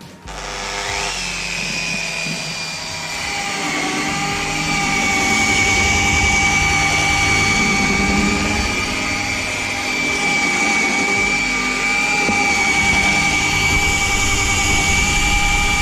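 Rotary sander fitted with a padded 3000-grit sanding disc, spinning up about a second in and then running with a steady whine as it sands a car's paintwork. It gets louder over the first few seconds.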